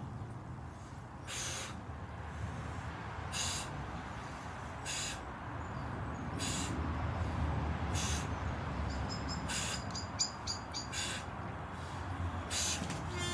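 A man breathing hard under exertion during side-plank leg raises, with a sharp exhale about every one and a half seconds. A bird chirps briefly in the second half over a steady low background rumble.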